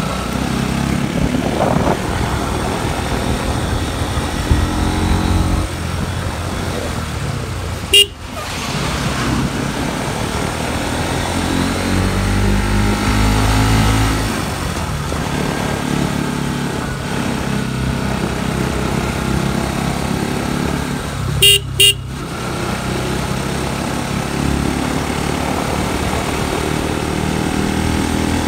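Motorcycle engine running steadily on the move, with the horn beeped once about a third of the way in and then twice in quick succession later on.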